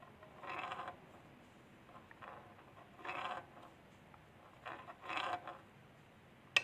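Crankshaft and connecting rod of an opened motorcycle engine being turned over, giving short bursts of mechanical rattling and clicking about every two seconds, with one sharp click near the end.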